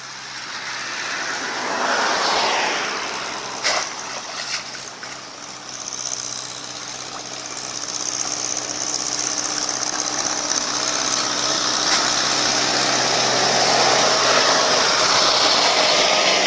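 An engine running steadily under a loud rushing noise that builds over several seconds, with a few sharp clicks about four seconds in.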